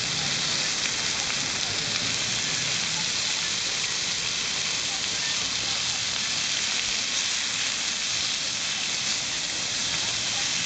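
Sliced beef sizzling steadily in its juices on a hot grill plate.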